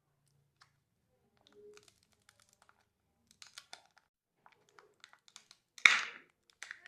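Plastic candy wrappers and packaging being handled: light crinkling and small ticks, then one loud, sudden crackle about six seconds in.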